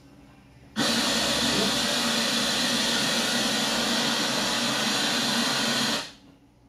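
Hand-held hair dryer blowing: a steady rushing noise with a low motor hum, switched on about a second in and off again about five seconds later.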